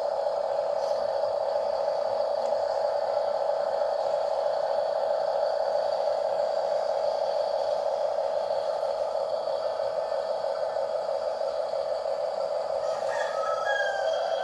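Radio-controlled car's small electric motor and gearbox whining steadily, with a few short higher tones near the end.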